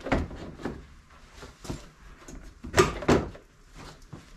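Plastic front bumper cover of a second-generation Ford Fusion being pulled loose from the car by hand: a string of plastic knocks and clunks, the loudest two close together about three seconds in.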